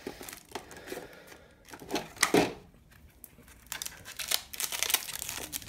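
Clear plastic packaging crinkling and rustling, with light clicks and knocks of parts being handled in a hard plastic tray. Irregular bursts, loudest about two seconds in, then more crinkling toward the end.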